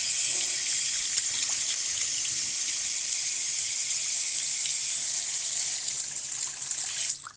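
Water running steadily from a tap, shut off suddenly near the end.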